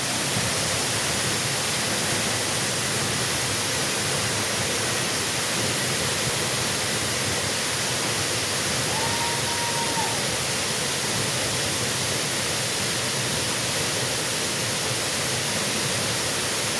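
Waterfall pouring into its pool: a loud, steady rushing of falling water. A short whistle sounds once, about halfway through.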